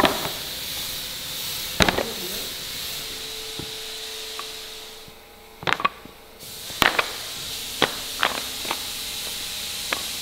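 Plywood drawer panels being set down and knocked onto stacks: a string of sharp, irregular wooden clacks, some in quick pairs, over a steady background hiss.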